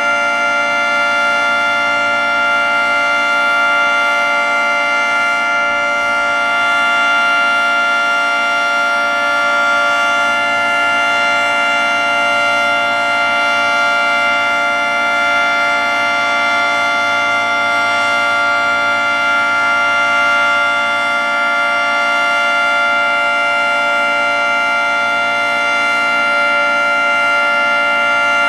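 Federal Signal 3T22 three-tone rotating outdoor warning siren sounding the Alert signal at full speed: a loud, steady multi-tone chord that swells slightly every few seconds.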